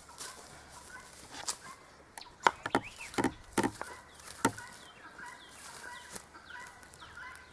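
Chickens clucking, with a few sharp knocks about halfway through.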